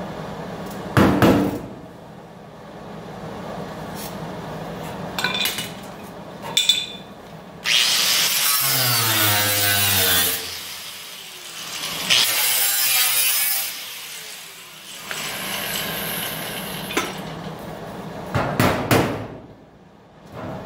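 Small angle grinder grinding down a weld bead along a steel body seam, in two loud passes about eight and twelve seconds in, its motor pitch sagging under load and recovering between them, then a lighter pass. Short, sharp, loud bursts of noise come about a second in and again near the end.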